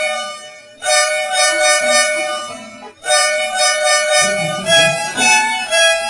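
Edited bus horn sound effect: a two-note horn chord sounded in long blasts of about two seconds each, with the last blast wavering in pitch near the end.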